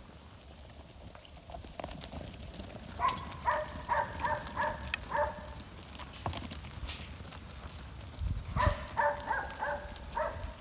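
A mob of white Suffolk x Merino ewe lambs trotting over a dirt yard, their many hooves making an uneven rumble of footfalls. Twice, a run of short, quick pitched calls, about three a second, rises over the footfalls for about two seconds each, once around three seconds in and again near the end.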